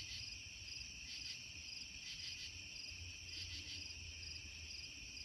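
Steady, high-pitched chorus of insects chirping, swelling in pulses about once a second, over a faint low rumble.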